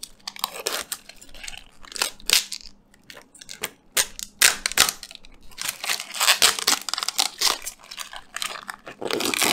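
Clear protective plastic film being peeled off a metal PC case side panel: irregular crackling and crinkling, thickest in the middle and toward the end.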